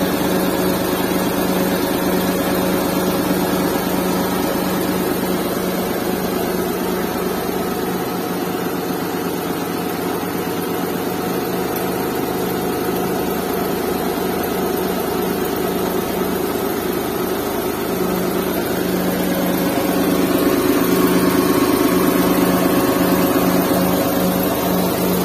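Suzuki K6A 660cc three-cylinder engine idling steadily, just started after the car stood for three days. It runs smoothly with no vibration, which the owner counts as a successful vibration test. It grows a little louder about twenty seconds in.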